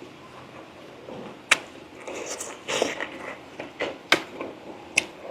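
A person eating braised pork leg close to the microphone: wet chewing and mouth sounds, with a few sharp smacking clicks.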